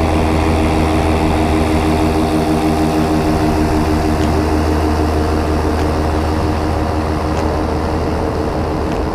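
Paramotor's Top 80 two-stroke engine and propeller running steadily at cruise power in flight.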